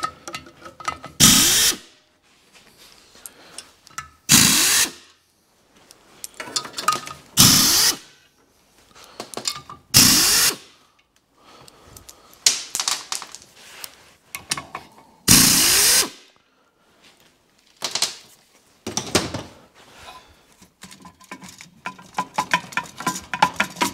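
Power tool run in about eight short bursts, each under a second and a few seconds apart, backing out the bolts of a clutch pressure plate one by one. Rapid light clicking near the end.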